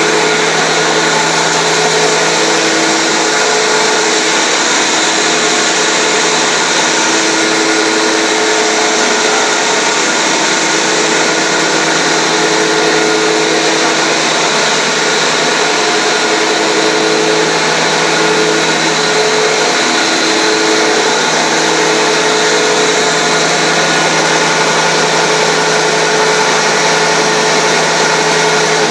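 Sawdust fine grinder machine running steadily: a loud, even rushing whir with a steady low hum underneath.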